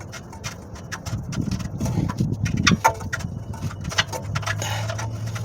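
Hand-tool work on car parts: a run of sharp clicks and knocks, metal on metal, with denser low knocking between about one and three seconds in, over a steady low hum.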